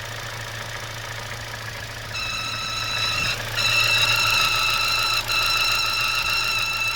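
Kia Spectra engine idling, with a steady high-pitched whistle from the throttle-body area setting in about two seconds in. It breaks off briefly, then comes back louder and holds. The whistle goes with strong crankcase suction: it stops when the breather hose is pulled or the oil filler cap is opened, and the cap gets sucked down into the filler neck.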